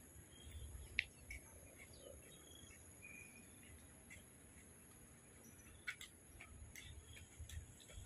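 Faint dusk outdoor ambience: a steady high-pitched insect drone with a few short bird chirps, and a sharp click about a second in.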